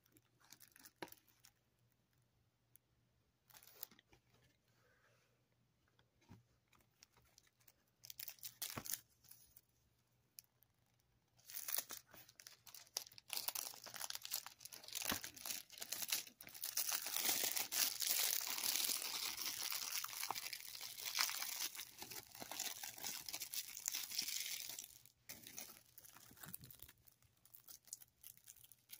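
Clear plastic shrink wrap being torn and peeled off a Blu-ray case. There are a few light handling taps and rustles at first, then a long stretch of crinkling and tearing that stops a few seconds before the end.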